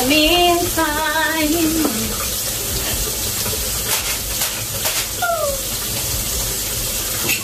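Water running steadily from a kitchen tap, with a voice briefly singing a note in the first two seconds.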